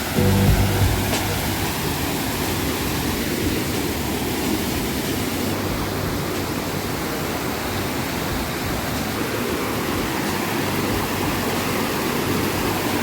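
Steady rushing of water from the Yasuj waterfall.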